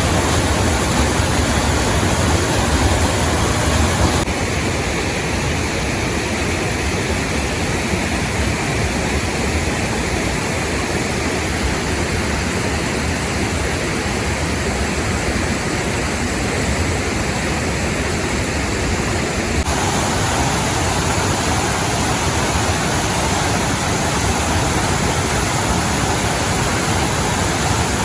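Steady rush of water flowing and falling in a rocky mountain stream, its tone shifting slightly about four seconds in and again near twenty seconds.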